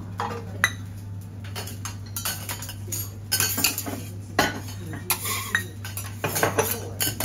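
Metal utensils clinking, tapping and scraping against hard surfaces in an irregular run of sharp clicks, busier in the second half, over a steady low hum.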